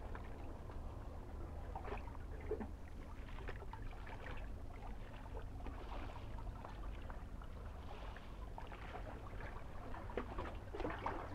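Small waves of a calm sea lapping at the shore in soft, irregular splashes, over a steady low rumble.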